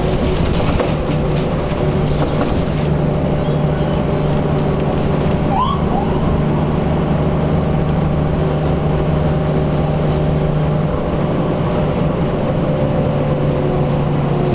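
Steady drone of heavy vehicle engines and traffic noise around road construction, with a short rising squeak a little before halfway.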